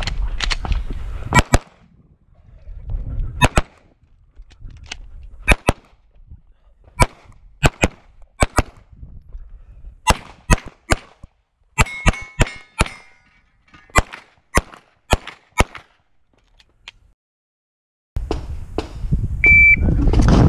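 9mm major Open-division race pistol (SPS Vista) fired in quick pairs, about twenty shots in several strings separated by short pauses. Near the end there is a short electronic beep, then a loud rushing noise.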